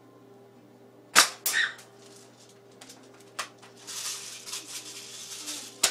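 Spring-powered single-shot airsoft rifle firing: a sharp snap about a second in, followed a third of a second later by a second crack as the BB strikes. Scattered clicks and a spell of rustling follow, and another sharp snap comes near the end.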